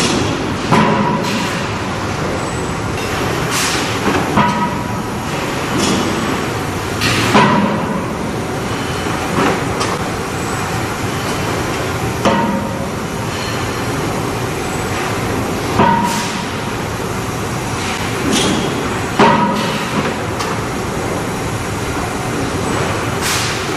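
Forging press striking hot steel on the die: heavy metallic blows with a short ring, a few seconds apart, over a steady din of shop machinery.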